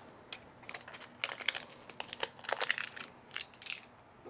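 Thin protective plastic film being peeled off and crinkled in the hands, in an irregular run of crackles and rustles.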